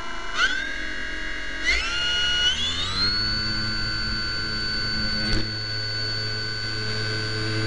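RC glider's motor and propeller spooling up in steps: a whine that rises in pitch two or three times in the first three seconds, each rise starting with a click, then holds steady.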